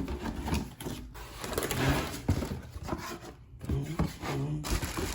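A welding hood's packaging box being opened and handled: irregular rubbing and scraping with scattered light knocks.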